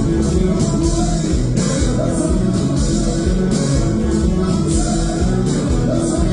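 Konpa band music: guitar and bass over a steady drum beat with regular cymbal strokes, with some singing.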